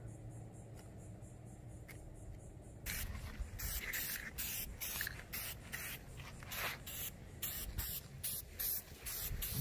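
Aerosol spray-paint can hissing in short repeated bursts, two or three a second, starting about three seconds in, as a first coat of paint goes onto a PVC pipe.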